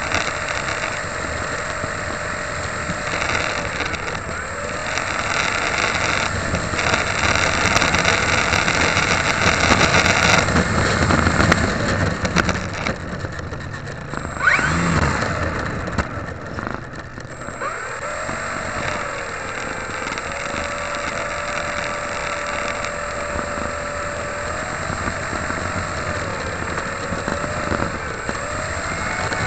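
Onboard sound of a Dynam Pitts electric RC plane in flight: air rushing over the camera's microphone and the whine of its electric motor and propeller, the whine's pitch dipping and recovering several times with throttle. It is louder for a few seconds near the middle, then briefly drops away and comes back.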